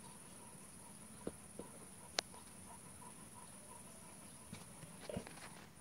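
Faint, steady, high-pitched insect chirring, with a few sharp little clicks in the first half and soft rustling near the end as a dog moves about.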